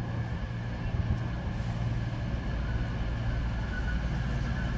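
A CrossCountry diesel multiple unit pulling into the platform: a steady low diesel drone that grows louder as it approaches, with a faint high squeal coming in near the end.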